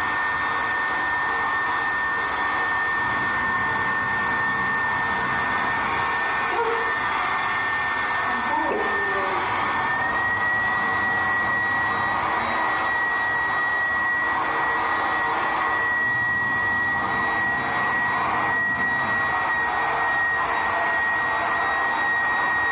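Handheld hair dryer running steadily on a wet cat's thick fur: a constant blowing hiss with a thin high whine that rises a little in pitch about ten seconds in.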